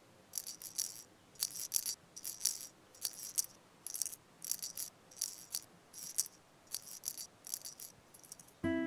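A rattle-like shaker sounding in a loose, steady rhythm of short high shakes, often in pairs. Just before the end, gentle music with plucked and chiming notes begins.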